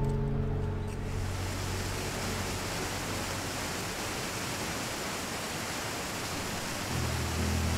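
Steady rushing of flowing water, with background music fading out in the first second and returning near the end.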